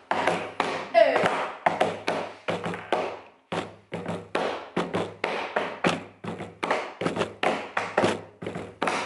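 A quick, uneven run of taps and thuds, two or three a second, each dying away quickly over a low hum-like tone.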